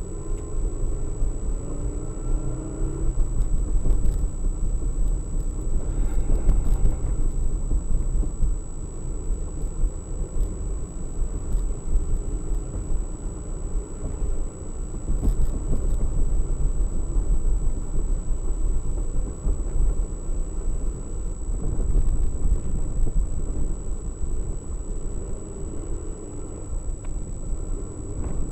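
Car driving along a wet road, heard from inside the cabin: a steady low rumble of engine and road noise.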